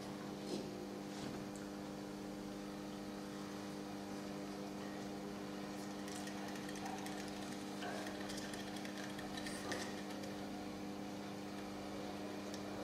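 Homemade ball-bearing motor running: a 6 V current through its ball bearings keeps a steel flywheel spinning with a steady hum. Short clicks and rattles come as it is handled and lifted.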